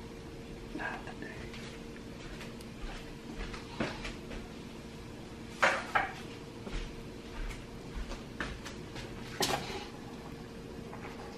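Kitchen clatter of pots, pans and cooking utensils: scattered knocks and clanks, the loudest pair about halfway through and another near the end, over a faint steady hum.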